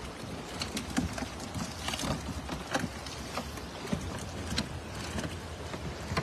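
Fish and water being shaken out of a wet mesh net into a plastic crate: irregular splashes, wet slaps and clicks over a steady background hiss.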